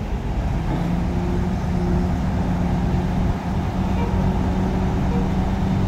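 Heavy diesel engine running steadily, a constant low drone that grows a little stronger about a second in.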